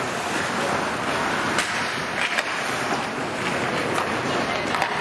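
Ice hockey rink during play: a steady hiss with a few sharp clacks scattered through, as from sticks and puck on the ice.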